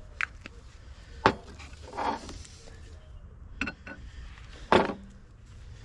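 Hammer striking a pin punch to drive a retaining pin out of an old steel Coes monkey wrench: a handful of sharp metallic knocks at uneven intervals, the loudest about a second in and near the end.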